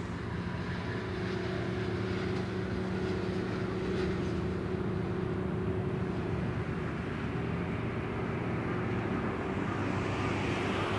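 Diesel engine of the small passenger ferry No. 18 Wakato Maru running steadily: a low, even drone with a steady hum, and a rushing hiss that grows near the end.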